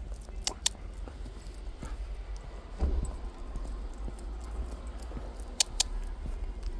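Metal leash clasp on a dog's collar clinking, twice in quick pairs, over faint tapping of the dog's claws on a concrete floor, with a steady low rumble underneath.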